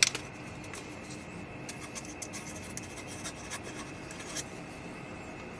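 Paper cardstock being handled and pressed while gluing a card piece: light rubbing and scattered small ticks, with one sharp click right at the start, over a steady low hum.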